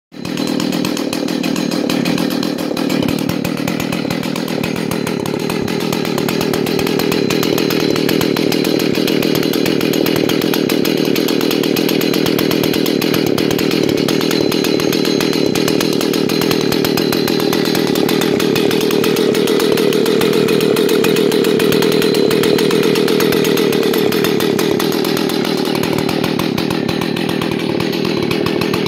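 Husqvarna 288XP 88 cc two-stroke chainsaw idling steadily while it lies on the ground, not cutting. It runs evenly throughout and gets a little louder about two-thirds of the way in.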